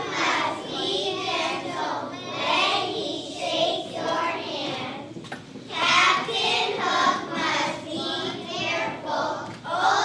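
A group of second-grade children singing together in unison.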